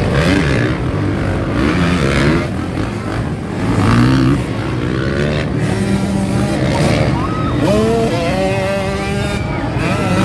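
Several motocross dirt bikes' engines running on the track, their pitch rising and falling again and again as riders open and close the throttle, over a steady low engine drone.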